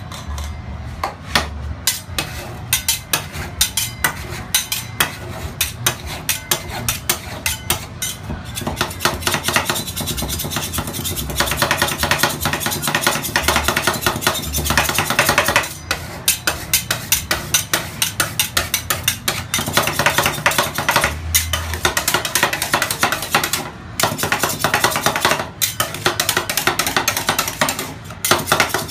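Two metal spatulas chopping rapidly on the frozen steel plate of a rolled ice cream machine, working pieces into the cream base. The result is a fast, continuous clatter of metal strikes with a couple of brief pauses.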